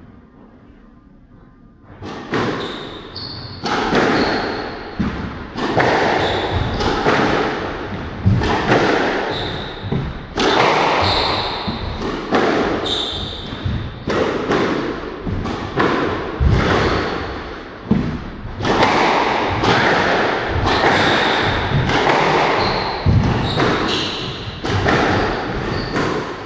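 Squash rally: the ball is struck by rackets and smacks off the court walls about once a second, with shoes squeaking on the court floor, echoing in the enclosed court. The play starts about two seconds in.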